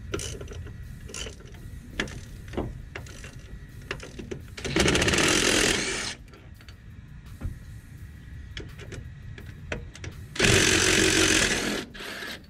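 Ratchet clicking on a socket, then a cordless drill spinning out the two 15 mm lower strut bolts of a GM SUV's front strut in two runs of about a second and a half each.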